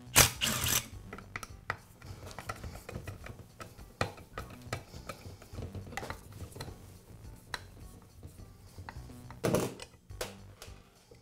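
Metal parts of a Skilsaw circular saw being handled and unscrewed while its upper blade guard is taken off: a loud metallic clatter near the start and another near the end, with scattered clicks and scrapes of a screwdriver working the screws in between.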